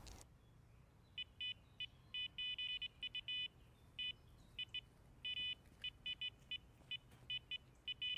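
Electronic carp bite alarm beeping in irregular runs of short, high beeps, starting about a second in and speeding up at times: line is being pulled over the alarm, the signal of a fish taking the bait.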